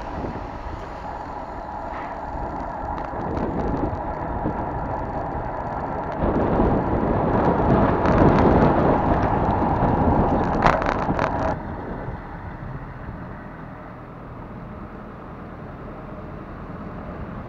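Wind rushing over the microphone and tyre and road rumble from a road bicycle being ridden, heard on a handlebar-mounted camera. The noise swells for several seconds in the middle, with a few sharp clicks near the end of that stretch, then eases off.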